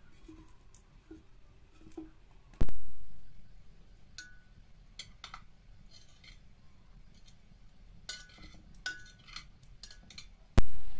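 Glazed clay cooking pot being handled on the bricks of a wood-fired hearth: scattered light ceramic clinks and scrapes, some briefly ringing. Two loud, sharp knocks stand out, one about two and a half seconds in and one near the end.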